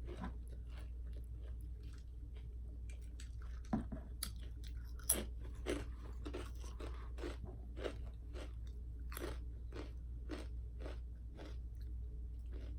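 Close-miked chewing of crunchy food, a crisp crunch about twice a second, with two sharper, louder crunches about 4 and 5 seconds in.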